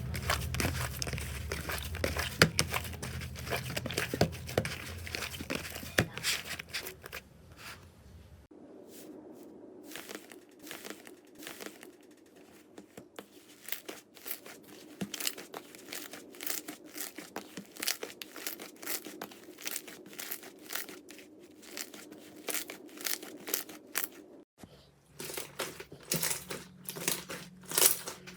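Slime being squeezed, stretched and pressed by hand, giving dense crackling, popping and tearing sounds. The sound changes abruptly twice, about 8 seconds in and near the end, quieter in between.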